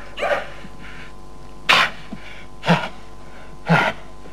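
Four short, sharp bursts of a person's voice, about a second apart, over a steady low hum.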